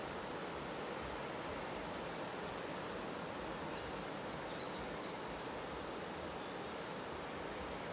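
Steady rush of whitewater rapids on the River Nile, with a small bird's short high chirps scattered over it, clustered about four to five seconds in.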